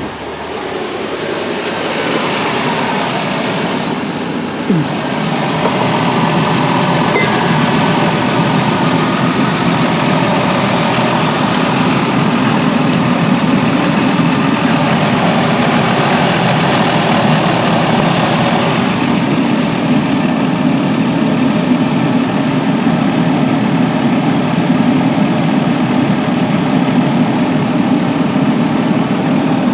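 2002 Dodge Grand Caravan's 3.8-litre V6 engine running at idle, settling into a steady sound after about five seconds.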